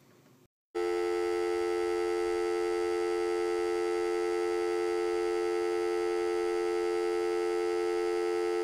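A steady electronic test tone of the kind played under a TV test pattern, holding one unchanging pitch from just under a second in and cutting off suddenly.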